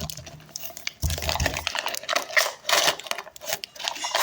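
Blind box packaging being handled and opened by hand: a rapid run of rustling, crinkling and small clicks, with a dull knock about a second in.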